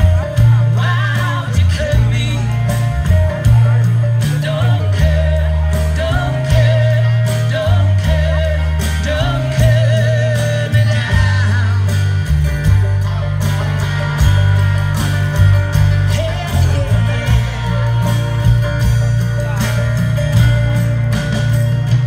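Live folk band playing through a stage PA, heard from the audience: a singing voice over guitars and banjo, with heavy bass notes that change every second or so.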